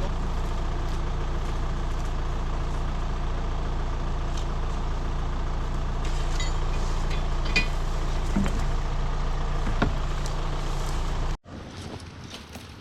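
A vehicle engine running steadily, with a couple of light knocks near the end. It cuts off suddenly about eleven seconds in, leaving much quieter outdoor sound.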